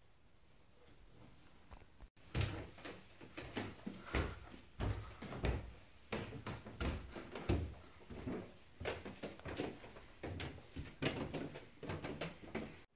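A run of irregular knocks and thumps, several a second, starting about two seconds in after a quiet start.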